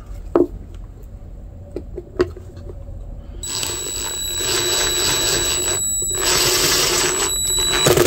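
A few light handling clicks, then about three and a half seconds in a cordless drill starts and runs with a steady high whine. A larger hex-shank bit is boring out the lanyard hole through the wooden knife scales. The drill eases off briefly near six seconds, then runs on.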